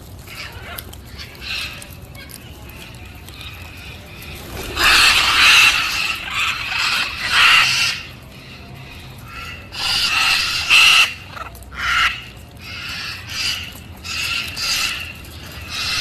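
A flock of chestnut-fronted macaws giving harsh, raucous calls in bursts. The calls are loudest in a cluster from about five to eight seconds in, then come as shorter repeated calls through the second half.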